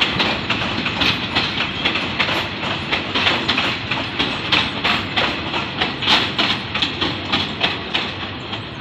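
State Railway of Thailand rapid-train passenger carriages rolling past as the train leaves the station, their wheels clacking over the rail joints in a quick, regular rhythm over a steady rumble.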